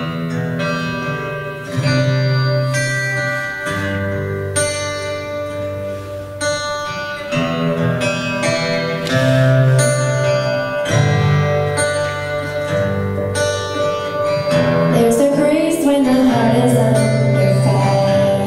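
Church worship music: instruments playing a song over a moving bass line, starting abruptly, with a wavering melody line in the last few seconds.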